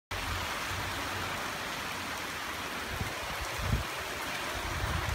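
Heavy rain falling steadily as a dense, even hiss, with a few brief low gusts of wind on the microphone around three to five seconds in.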